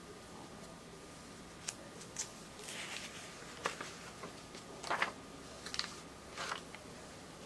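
Paper pages of a ring-binder catalog being handled and turned: a series of short rustles and clicks, the loudest about five seconds in.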